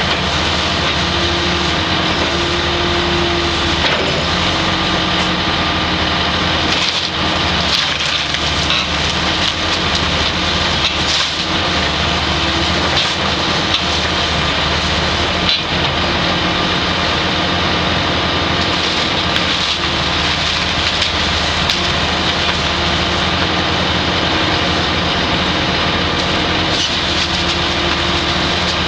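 Kobelco 200 tracked excavator's diesel engine running steadily as its bucket tears apart a wood-frame building, with timber cracking and splintering throughout and a few sharper cracks of breaking wood.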